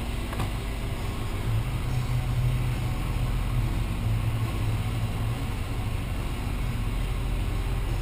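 306 small-block Ford V8 idling steadily, a low even rumble.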